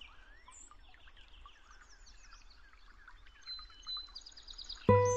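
Many birds chirping and singing in quick short calls and trills, fairly faint. Near the end, music comes in suddenly with a loud held chord.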